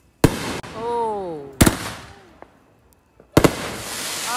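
Consumer firework aerial shells bursting: three sharp bangs about a second and a half apart, each trailing off over about a second. Twice a long call falls in pitch just after a bang.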